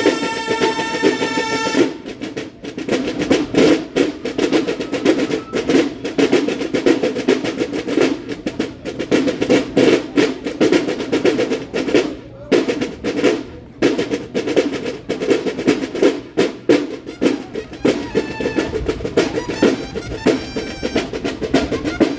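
Banda de guerra playing: a held bugle chord cuts off about two seconds in, and the snare drum line carries on alone with a fast cadence of strokes and rolls.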